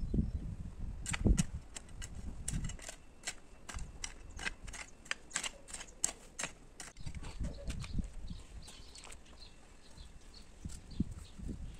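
Garden hoe chopping and scraping dry, stony soil in short irregular strokes: a quick run of sharp clicks, several a second, with a few dull thumps, the loudest about a second in.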